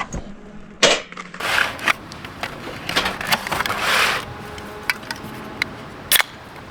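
Irregular clicks, knocks and short rustles of things being handled by hand.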